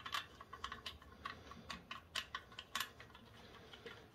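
Faint, irregular small clicks of a hand tool turning in the M6 bolts that hold the headlight to its mounting bracket, a few clicks a second.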